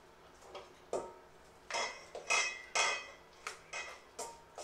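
Flat metal hand grater knocking and scraping against a stainless steel bowl while potatoes are grated, about eight metallic clinks and short rasping scrapes with the bowl ringing briefly after each.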